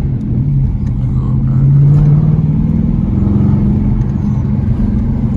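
Exhaust of a 2020 Dodge Challenger R/T's 5.7-litre HEMI V8 with the mid muffler deleted, running steadily as the car drives; the engine note shifts slightly in pitch about halfway through.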